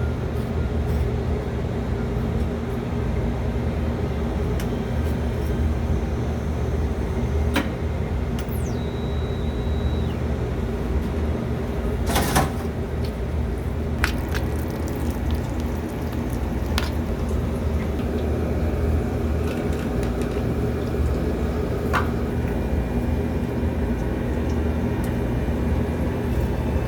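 Steady low mechanical hum with a handful of sharp clicks and knocks, the loudest about twelve seconds in, and a brief high beep-like tone around nine seconds in.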